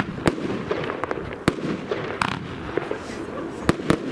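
Evolution 'Double Gold' 30 mm fireworks battery (cake) firing: about five sharp bangs of shots going off, the last two close together near the end, over a continuous rumble from the show.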